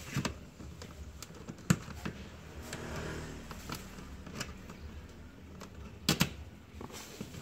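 Hands working a car's plastic interior trim panel loose, with sharp plastic clicks and knocks about a second and a half in and a double click about six seconds in.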